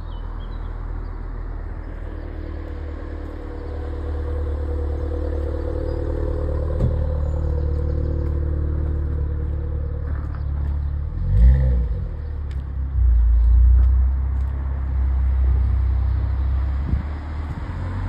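Road traffic: a passing vehicle's engine drones and grows louder over the first few seconds, then fades. Heavy low rumbling follows in the second half, with a sudden loud low burst about halfway through.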